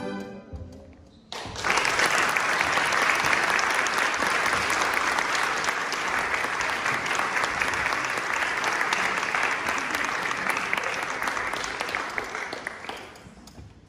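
The last chord of a violin and cello duet dies away, then audience applause breaks out suddenly just over a second in, holds steady and fades away near the end.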